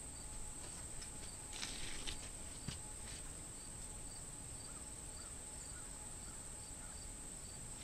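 Steady high-pitched chorus of crickets, with a brief rustle and one small click as small engine parts are handled about two seconds in.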